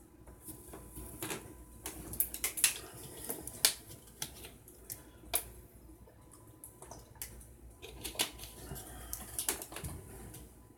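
Irregular light clicks and taps from small items being handled on a workbench.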